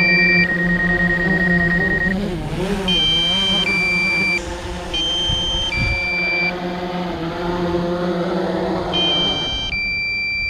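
A steady electric-motor hum whose pitch wavers briefly a few seconds in, with a repeating two-tone electronic beeping over it; both cut off shortly before the end.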